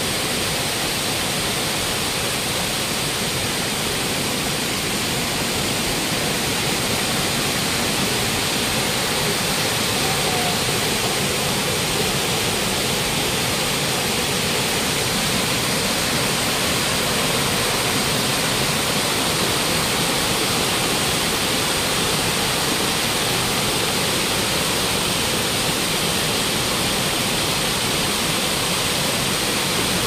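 Waterfall: water falling and splashing in a steady, unbroken rush.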